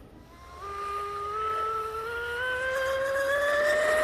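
High-speed electric RC boat running on an ABC 1817 three-blade propeller: the motor and prop give a high whine that starts about half a second in and climbs gradually in pitch and loudness as the boat accelerates.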